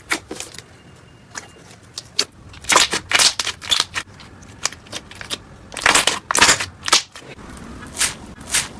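Slime being squeezed and pressed by hand, giving irregular crackling clicks and pops that bunch up about three seconds in and again around six seconds in.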